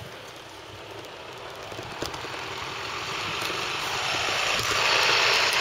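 International 4300 box truck's diesel engine running as the truck pulls forward, growing steadily louder, with a rushing noise building over the last couple of seconds.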